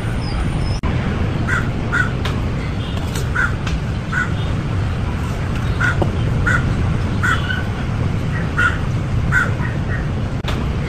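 Crows cawing repeatedly in short, harsh calls, often two close together, over a steady low background rumble.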